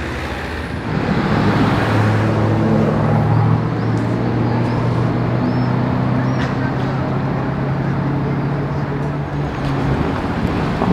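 Lamborghini Urus twin-turbo V8 exhaust running loud and steady as the SUV drives off at low speed. The engine note swells about a second in and holds.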